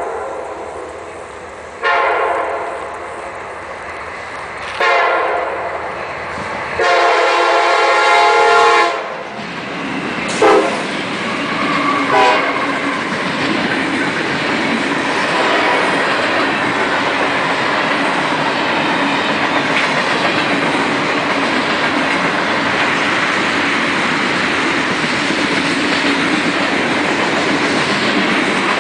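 Freight train locomotive horn sounding four long blasts as the train approaches, the last one loudest and ending about nine seconds in. Then the steady rumble and clatter of freight cars rolling past, with wheels clicking over the rail joints.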